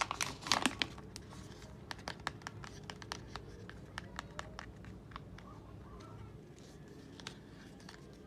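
Packaging crinkling as it is handled, a dense flurry of crackles in the first second, then scattered light crackles and ticks.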